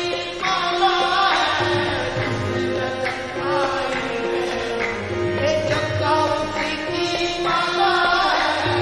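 Qawwali music: tabla drumming under harmonium melody and a held drone, with wavering sung phrases.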